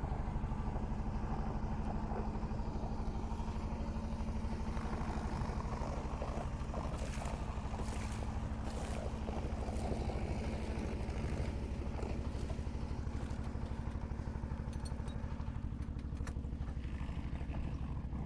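Fishing boat's engine running steadily with a fast, even chugging, with a few clicks and clatters in the middle and again near the end.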